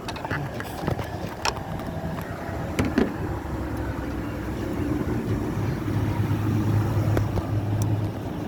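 Plastic air intake tube being worked onto a Mustang's throttle body by hand: scattered clicks and knocks over a steady low hum.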